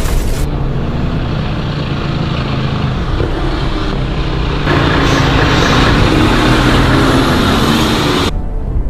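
Car engine running, with a louder rushing layer of road and wind noise that comes in about five seconds in and cuts off sharply shortly before the end.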